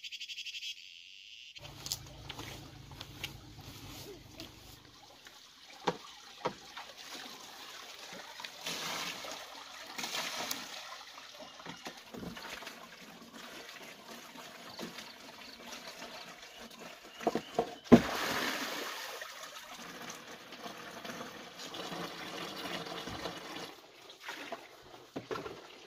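Water trickling and splashing, with scattered knocks and clatters. A sharp knock about eighteen seconds in is the loudest.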